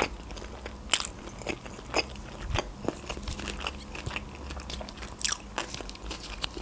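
A person chewing a mouthful of sushi roll, with irregular sharp mouth clicks and crunches.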